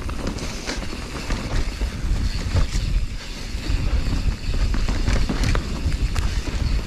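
Mountain bike riding fast down a dirt forest trail: wind rumbling on the microphone, tyres rolling over dirt and dry leaves, and many small clicks and knocks as the bike rattles over bumps.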